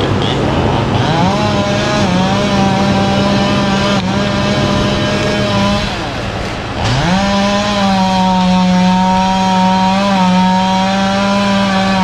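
Chainsaw running hard at high revs while cutting the top out of a tall cottonwood. It revs up about a second in, eases off briefly around six seconds, then revs up again and holds steady.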